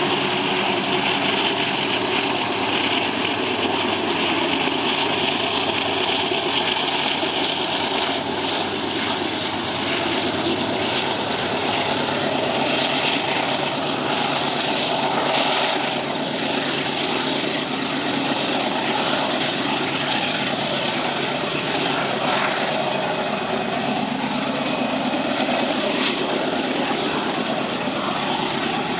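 GE AC4400CW diesel-electric locomotives working under load up a steep grade: a steady, loud drone from their 16-cylinder diesel engines.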